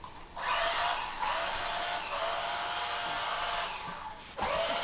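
A small electric motor whirring steadily. It starts about half a second in, cuts out briefly near the end and starts again.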